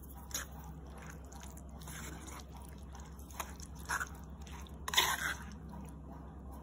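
A spatula mixing chopped vegetables and yoghurt in a clay pot, giving a few short stirring and scraping sounds; the loudest comes about five seconds in. A steady low hum sits underneath.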